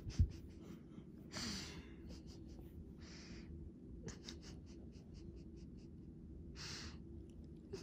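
A dog breathing and sniffing with its nose right against the phone's microphone: three soft puffs of breath among many quick, short ticks.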